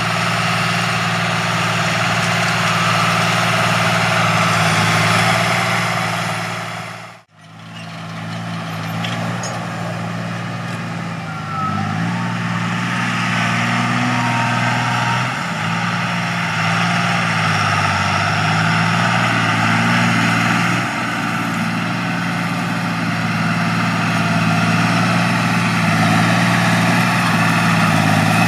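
John Deere 8100 tractor's six-cylinder turbo diesel running steadily under field load, with its engine note wavering up and down for several seconds about midway. The sound fades out and back in briefly about seven seconds in.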